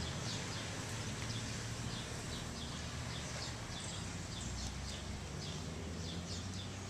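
Birds chirping in short, high, falling calls repeated about twice a second, over a steady low rumble.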